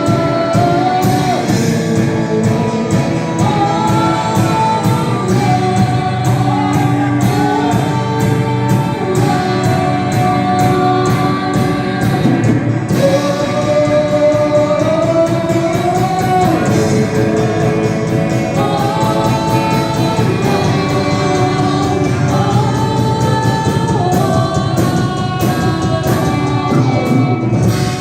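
Gospel worship music: several voices singing a melody together over a band with a steady drum beat.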